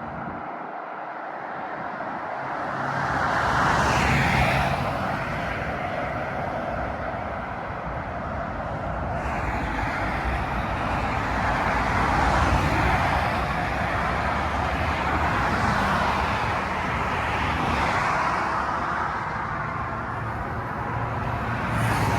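Steady highway traffic noise, with vehicles passing and swelling louder every few seconds.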